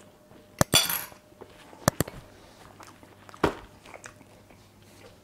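Cutlery clinking against ceramic plates: a handful of short, sharp clicks, spread over a few seconds.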